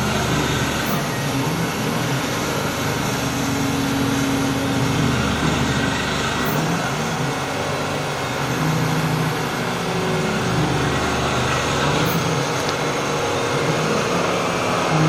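Fanuc-controlled CNC machine tool running: a steady mechanical noise with low hum tones that shift in pitch a few times.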